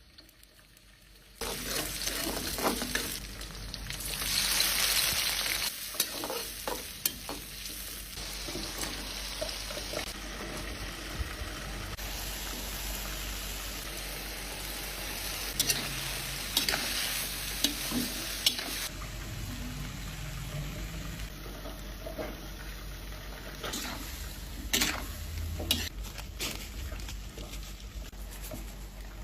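Shrimp and broccoli stir-frying in a pan: steady sizzling with a spatula scraping and clinking against the pan. The sizzle starts about a second and a half in and surges louder about four seconds in.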